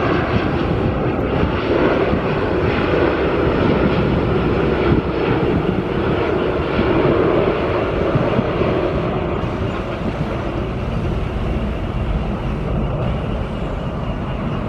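Boeing 747-8 freighter on final approach, its four GEnx jet engines at approach power making a steady rumble with a low drone.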